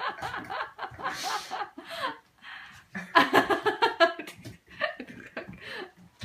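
A person laughing, chuckling in short repeated bursts, loudest about halfway through.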